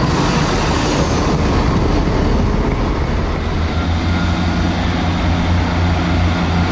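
Diesel multiple units at a station: a Class 170 Turbostar's engines running as it pulls away along the platform, then, after a cut about halfway through, a Class 158 Sprinter approaching with a steady low diesel hum.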